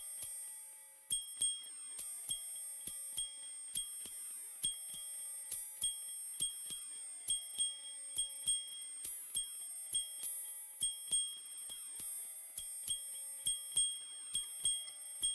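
Synthesised ultra-high-pitched tone for tinnitus masking, held steady and loud, with short soft ticks recurring about two or three times a second. The tone dips briefly a few times, about five, nine and ten seconds in.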